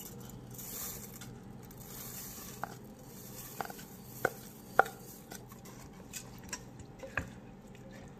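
Dry basmati rice poured in a stream into the liquid in a rice cooker's inner pot, with a soft hiss. A wooden spatula stirs it, and there are a few sharp taps in the middle.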